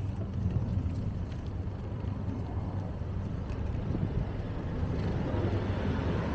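Wind buffeting a small handheld camera's microphone while cycling: a steady low rumbling noise that grows a little louder and brighter near the end.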